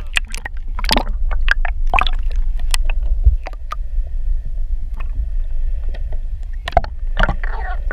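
Underwater recording: a steady low rumble of water around the camera housing, with many irregular sharp clicks and taps. A faint steady high hum joins about halfway through.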